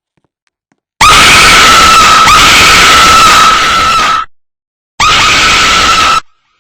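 A person's voice screeching loud and distorted in imitation of a fire alarm: one long held blast of about three seconds, then a shorter one of about a second.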